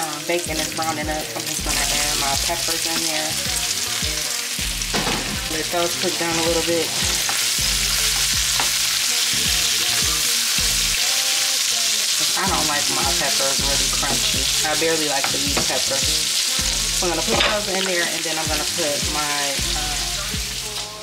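Diced bacon sizzling in a nonstick frying pan, stirred with a wooden spatula as strips of bell pepper go in; a steady, hissing fry.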